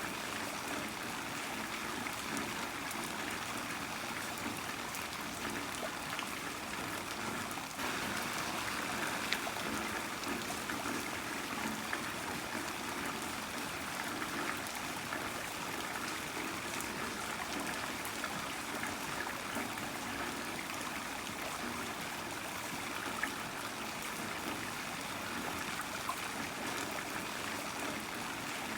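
Heavy rain falling steadily, with water trickling and scattered drops ticking; it gets a little louder about eight seconds in.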